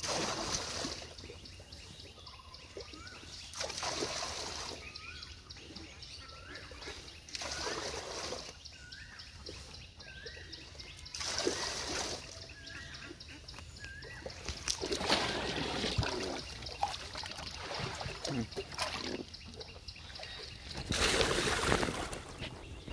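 Water splashing and trickling as a wet cast net is hauled up out of a pond by hand, in swishing pulls every few seconds. A bird chirps short rising notes in the background during the first half.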